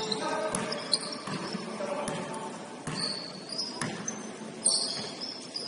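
A basketball bouncing on a gym floor during play, about five irregularly spaced bounces, with a couple of short high sneaker squeaks on the court.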